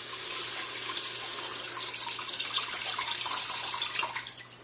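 Water poured into the Instant Pot's inner pot onto the sautéed onions, garlic and ginger, a steady splashing pour that stops near the end; this deglazes the pot bottom.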